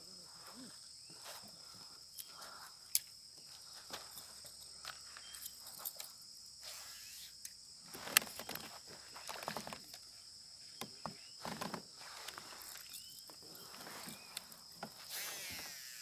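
Insects chirping in a steady, high, unbroken drone, with scattered sharp clicks and short rustles of gear being handled close by.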